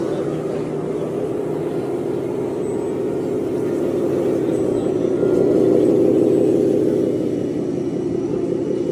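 Radio-controlled model fire trucks running: a steady engine-like drone that grows louder for a couple of seconds in the middle.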